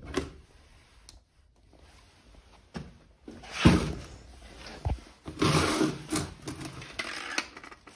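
Handling noise: scattered knocks, clicks and rustles as gear is moved about, with the loudest knock about four seconds in and a busier run of knocks and rustling near the end.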